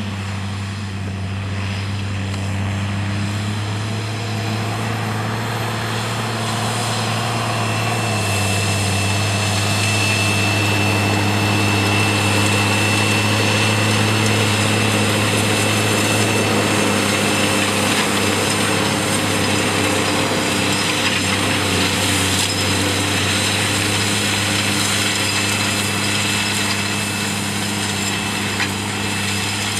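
New Holland T7050 tractor's six-cylinder diesel engine running steadily under load as it pulls a Horsch Pronto DC4 seed drill through tilled soil, mixed with the rumble and clatter of the drill working the ground. A thin high whine joins for several seconds in the middle.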